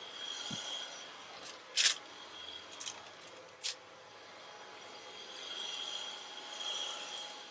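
Toppin cordless stick vacuum's brushless motor running with a steady high-pitched whine that swells and fades, with two sharp clinks, the louder about two seconds in and another near four seconds.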